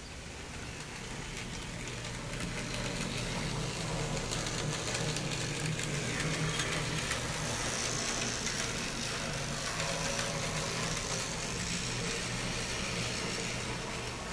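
N scale model tram running on its track: a steady electric-motor hum with a scatter of small wheel-on-rail clicks. It grows louder over the first few seconds, then holds before easing off slightly near the end.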